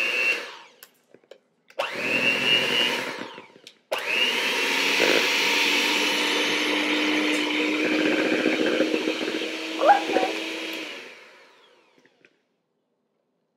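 Electric mixer beating butter and sugar in a bowl. It runs in two short bursts, then a longer steady run of about seven seconds that winds down and stops. Each start has a rising whine as the motor spins up, and there is a short clack near the end.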